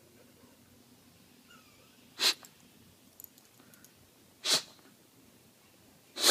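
Bulldog sneezing three times: short, sharp sneezes about two seconds apart, the last one right at the end.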